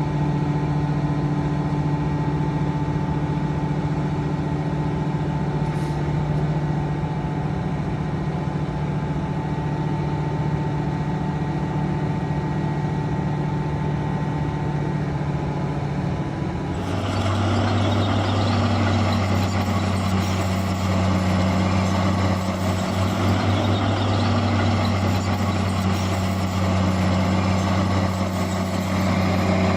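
Heavy diesel engine of earthmoving machinery running steadily. About halfway through, the sound switches abruptly to a louder, harsher engine note with a deeper drone.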